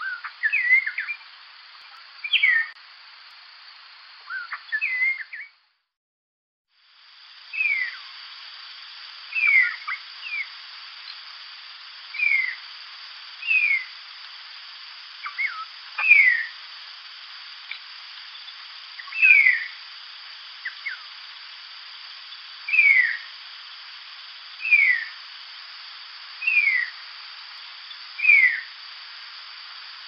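Kenrick's starling giving a few short jumbled chirps, then, after a brief break, a narrow-tailed starling repeating short whistled notes that slide downward in pitch, about one every two seconds.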